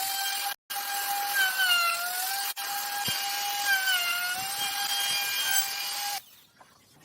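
Power tool motor running with a steady high whine that wavers slightly in pitch. It drops out briefly just over half a second in and cuts off suddenly about six seconds in.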